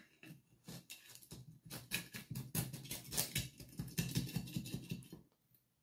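A blade scraping and scratching around the inside of a glazed pot, cutting through packed soil and the jade plant's tough roots to free the root ball. A quick run of scratchy strokes that stops about five seconds in.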